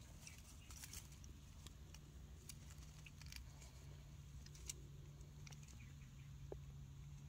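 Near silence: faint background with a low steady hum and a few faint scattered ticks.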